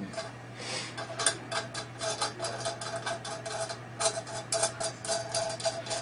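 Large steel nut being spun down a long threaded steel bolt by finger flicks: rapid, irregular clicking and rattling of metal on the threads, with a faint metallic ring in places.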